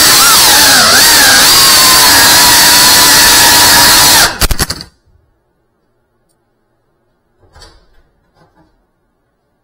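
Cinewhoop FPV drone's motors and ducted propellers whining loud and steady, the pitch wobbling briefly with throttle about half a second in. At about four and a half seconds a few sharp knocks come and the motor noise cuts off suddenly, leaving near silence with a couple of faint soft sounds.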